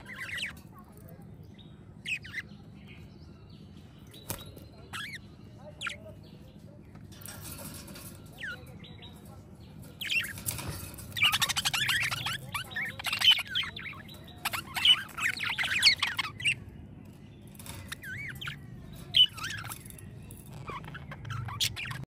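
A flock of budgerigars chirping: scattered short calls at first, then a loud stretch of fast, dense warbling chatter from about ten to sixteen seconds in, then scattered calls again.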